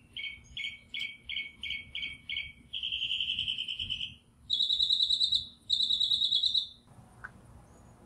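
High animal chirping: a run of short chirps about three a second, then a steady trill about three seconds in, and two louder, higher buzzy trills after it.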